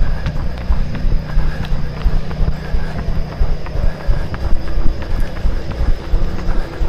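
Footfalls of a person running with the camera, with the camera jostling: even, rhythmic thuds about three a second, with small sharp clicks among them.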